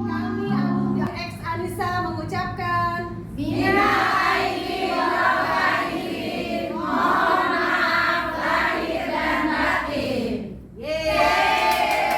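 Background music with singing voices: short plucked or struck instrument notes open the passage, then a chorus of voices comes in about three and a half seconds in, breaking off briefly near the end before resuming.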